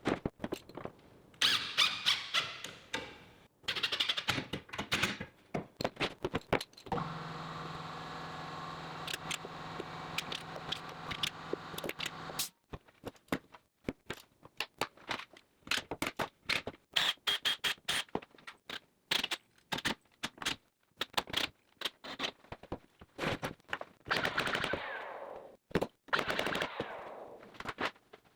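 Power tools and hand work assembling a plywood shop cabinet: a drill runs steadily for about five seconds near the middle, among many sharp clicks and knocks that come in quick runs.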